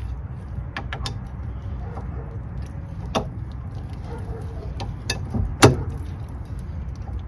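Metal hand tools and brake hardware clinking and clicking at irregular moments, with the sharpest clink about five and a half seconds in, over a steady low rumble.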